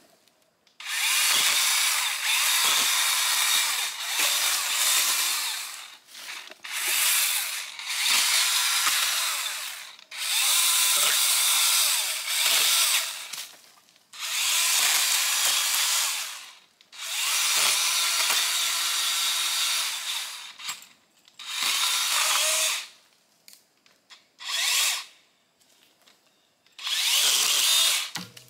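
DeWalt cordless battery-powered pole saw running its chain and cutting branches, in about ten bursts of one to three seconds with short pauses between them; the last few bursts are shorter.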